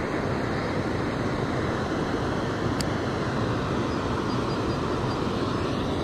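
Water rushing steadily over a concrete spillway weir, an unbroken rushing noise, with one small click about three seconds in.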